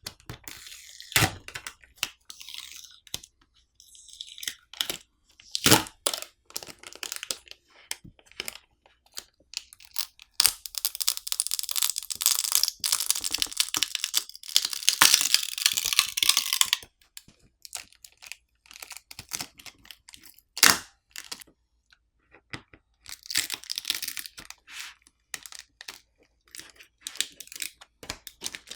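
Tablet battery being peeled off its adhesive with a pull tab: crackling and tearing of the adhesive letting go, in one long continuous stretch about ten seconds in that lasts some six seconds. Sharp clicks and taps of tools and parts are scattered throughout.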